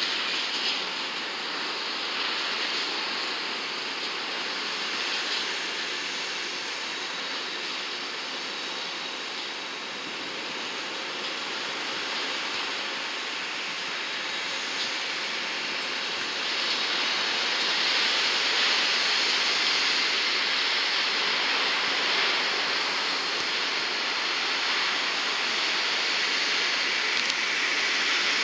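Jet aircraft engines running, a steady rushing noise that grows louder from about halfway through.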